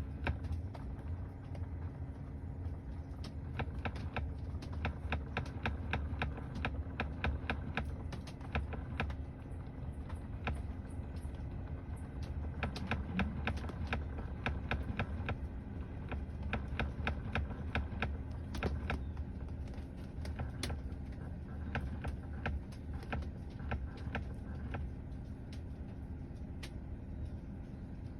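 Rapid, irregular knocking and clicking from inside the dashboard of a Tesla Model 3 after the locked car is opened, thickest in the first several seconds and thinning out to scattered knocks later. A low steady hum runs underneath.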